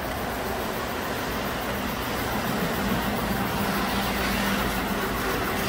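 Model trains running on a large miniature railway layout: a steady, even rumble of wheels on track, with a low hum coming in about two seconds in.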